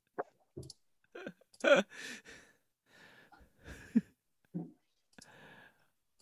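Brief breathy chuckles, sighs and small mouth clicks from people on a video call, cut into short bits by silent gaps, with one louder voiced sound about a second and a half in.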